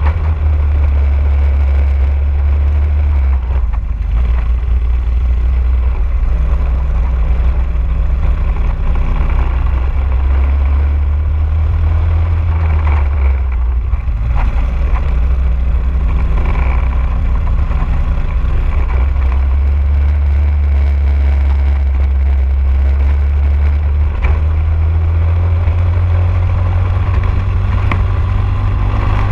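Briggs & Stratton LO206 single-cylinder four-stroke kart engine running at race pace, heard from on board the kart. The engine note drops as the kart slows for corners, about 4 and 14 seconds in, and climbs again as it accelerates onto the straights.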